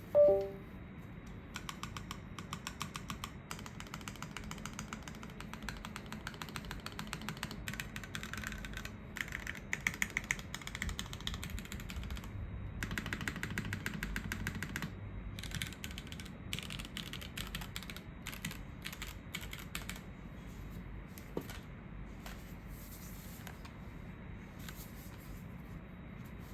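Typing on a Safa 5.88 TKL mechanical keyboard: lubed Gateron L'orange switches in a top-mounted aluminium plate with no dampening, under GMK keycaps. Fast runs of keystrokes with short pauses, thinning to scattered key presses near the end. Right at the start a brief, loud ringing tone.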